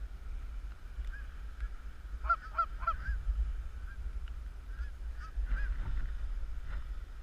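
Canada geese honking: a flock calls steadily in the distance, with a cluster of louder, closer honks about two seconds in and a few more around five to six seconds.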